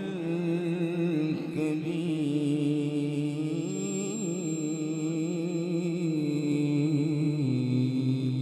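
A man's voice chanting through a public-address system in long, wavering held notes, in the melodic style of Quran recitation, dropping to a lower note near the end.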